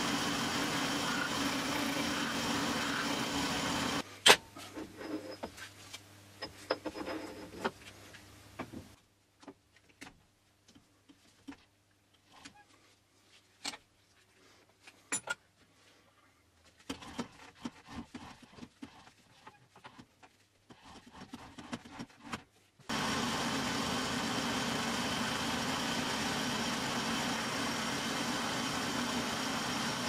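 Metal lathe running steadily while turning down a steel bulldozer track pin. It stops abruptly about four seconds in, and scattered clicks, knocks and light metal clatter of parts and tools being handled follow. About twenty-three seconds in, the lathe starts again and runs steadily.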